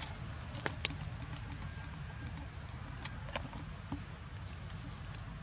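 A few sharp crackles of dry leaf litter as macaques shift on the ground, over a steady low rumble, with two short high-pitched chirps, one near the start and one about four seconds in.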